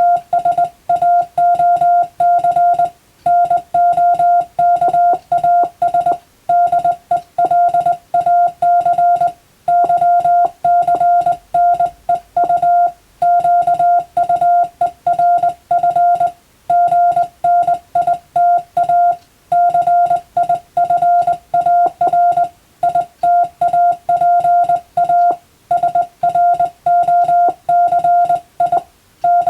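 Morse code (CW) tone keyed into quick dots and dashes: one steady high tone switched on and off, with a short pause every few seconds between groups. It is Latin-alphabet telegram text sent as code-receiving practice.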